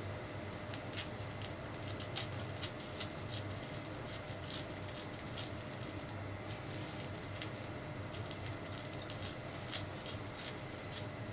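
Metal spoon scooping the flesh out of a halved orange: soft, wet squelching and scraping in many short, irregular clicks, with a steady low hum underneath.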